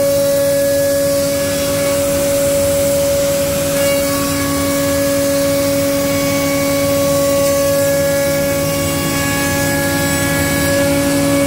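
STYLECNC CNC router's spindle running at high speed with a steady whine over a rushing noise as it machines tenons on wooden window rails.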